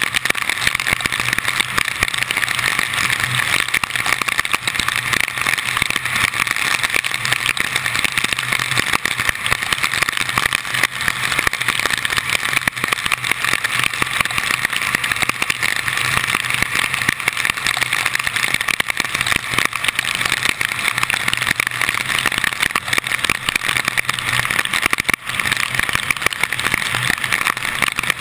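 Car driving on a rain-soaked road in heavy storm rain, picked up by a hood-mounted camera: a steady rush of wind, rain and tyre spray, with a faint low engine hum underneath.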